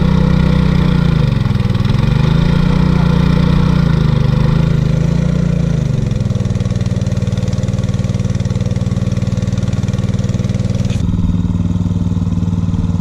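Small petrol engine of a portable water pump running, drawing water through its suction hose to drain a rock pool. Its speed dips and wavers for the first few seconds, then holds steady, and the tone changes abruptly near the end.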